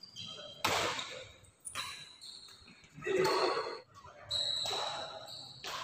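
Badminton rally on an indoor court: a racket hits the shuttlecock three times, a second or more apart. Short high squeaks come between the hits.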